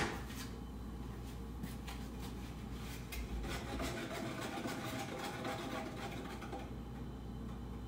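Kitchen knife cutting slits into raw calzone dough, with faint light taps of the blade on a wooden cutting board, over a steady low hum.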